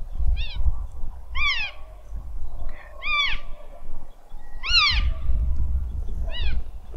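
Elk mewing: five short, high calls about a second and a half apart, each rising then falling in pitch, over a low rumble.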